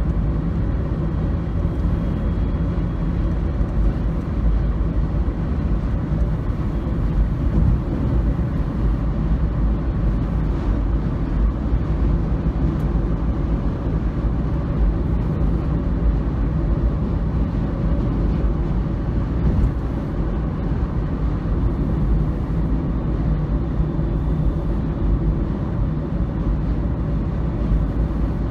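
Steady road and engine rumble of a car driving on an expressway, heard from inside the car.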